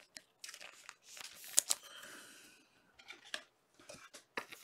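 Trading cards being handled and slid against one another: light clicks and ticks, with a soft sliding rustle and a sharper click about a second in.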